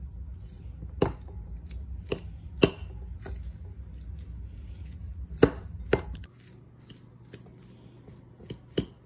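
A metal fork crumbling a block of feta cheese on a ceramic plate: soft scraping and squishing, broken by about half a dozen sharp clicks of the tines striking the plate.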